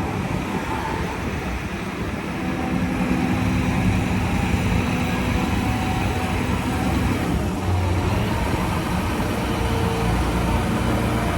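A heavy vehicle's engine running steadily: a low, even hum under a rough, noisy wash.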